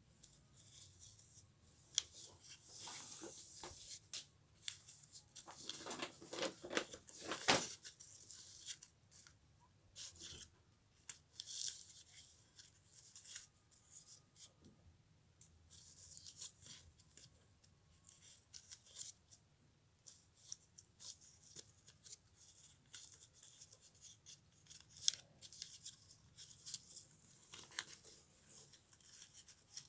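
Paper being handled and worked close by: irregular crisp crackles, rustles and clicks, with a louder run of crinkling about six to seven and a half seconds in.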